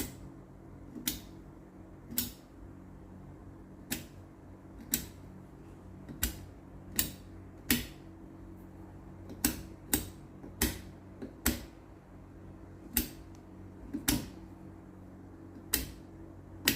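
Jackson 103 tube tester's selector switches being clicked from position to position while stepping through a tube's test circuits: about eighteen sharp clicks at uneven intervals, over a low steady hum.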